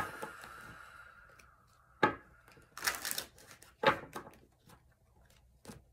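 A deck of tarot cards being handled and shuffled: a handful of sharp card slaps and short riffles a second or two apart. The first slap is followed by a faint ringing tone that fades.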